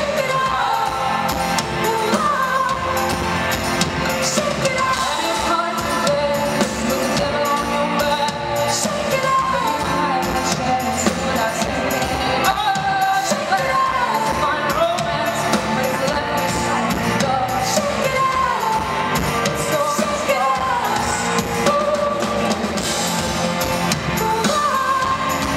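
A live rock band plays with a woman singing lead over drums, electric guitar, harp and keyboard. It is heard from within the crowd in a large concert hall.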